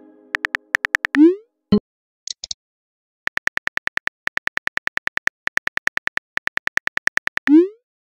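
Simulated phone keyboard typing clicks, about five quick even taps a second through most of the second half. A short rising swoosh plays as a text message is sent about a second in and again near the end, with a soft pop shortly after the first.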